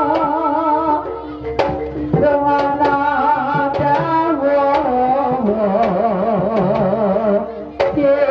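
Kuda kepang accompaniment music: a wavering melody with heavy vibrato over held tones and irregular drum strokes. The music thins briefly about a second in and again near the end, each time coming back with a sharp drum stroke.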